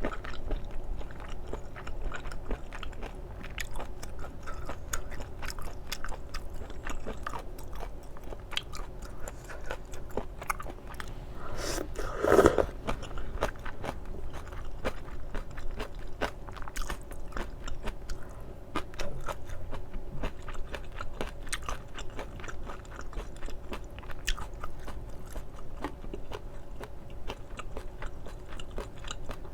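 Close-miked eating sounds: chewing spicy stir-fried octopus and noodles, with many small wet mouth clicks and one louder mouth sound about twelve seconds in.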